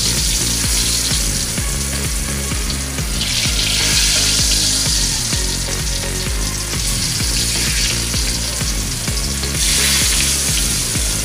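Tofu blocks sizzling as they are laid into hot cooking oil in a wok; the sizzle swells about three seconds in and again near the end as more pieces go into the oil.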